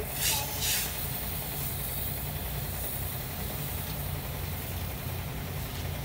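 Car wash pressure wand spraying water onto the side of a van: a steady hiss of spray over a constant low hum, with a brief louder hiss in the first second.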